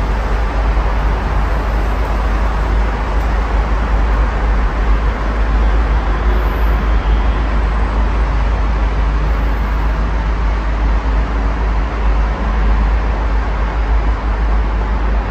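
Steady road traffic from a multi-lane road below: a continuous wash of car tyre and engine noise with a strong, deep rumble underneath.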